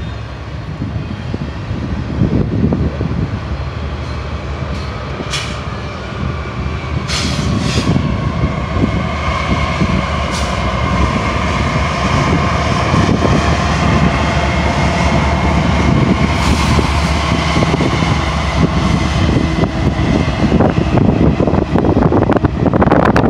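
Double-stack container train rolling past on the rails, with a few sharp clicks from the wheels. From about a third of the way in, a steady whine joins and the sound grows louder as the two rear DPU diesel locomotives, a GE Dash-9-44CW and a GE ES44AC, come by.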